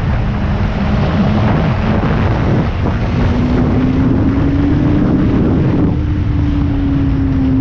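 Motorcycle engine running at cruising speed under heavy wind rush on the microphone, its note rising a little about three seconds in and easing back down after about six.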